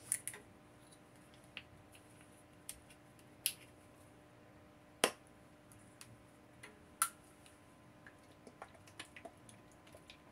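Quiet room with a faint steady hum, broken by a few sharp, isolated clicks and then a quicker run of small ticks near the end.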